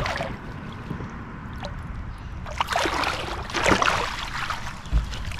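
Water splashing and sloshing beside a kayak, in two bursts of about a second each around the middle, with a low thump near the end.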